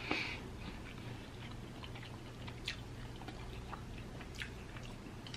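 A person eating ribeye steak, chewing softly with scattered small mouth clicks and smacks.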